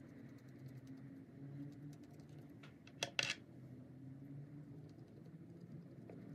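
Paintbrush dabbing and scrubbing on paper, heard as faint scratchy ticks over a low steady hum, with two sharp clicks close together about three seconds in.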